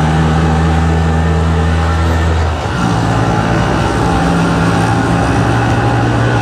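Auto-rickshaw's small single-cylinder engine running under way, heard from inside the open passenger cabin. Its note changes about two and a half seconds in.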